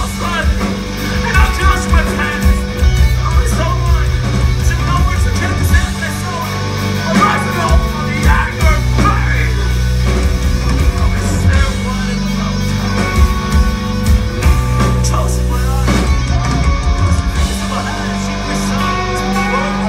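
Metal band playing live through a venue PA, heard from among the audience: distorted electric guitars, heavy bass and pounding drums, with a singer's vocals over them.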